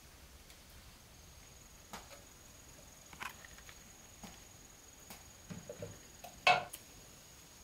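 Scattered light knocks and clatter of a plastic basket, bowls and a steel pot being handled on a wooden counter, with the loudest clack about six and a half seconds in. A faint steady high whine runs underneath.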